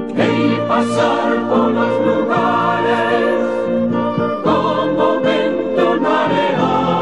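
Background music: a choir singing over instrumental accompaniment, the voices coming in right at the start.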